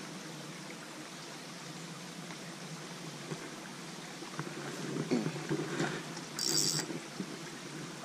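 Small creek flowing steadily, a soft even rush of water, with a brief high-pitched sound about six and a half seconds in.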